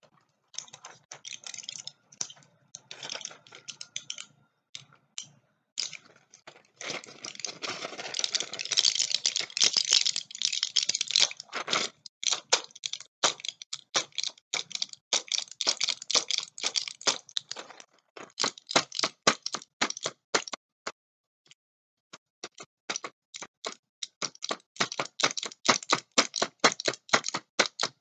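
Close-up handling of medicine packaging: a dense crinkling and scratching stretch, then quick runs of sharp clicking taps, several a second.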